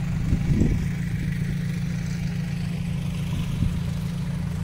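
Steady low rumble of heavy construction machinery engines running, with a few brief low thumps.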